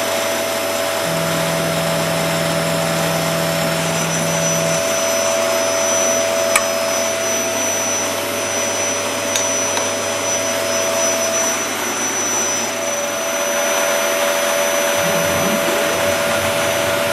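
A steady, loud motor running with a rushing air sound, like a shop vacuum or blower, with a low hum joining about a second in and stopping about five seconds in, and a single click a little later. Near the end, tones glide up and down, typical of the ShopBot CNC router's stepper motors moving the drag-knife vinyl cutter head.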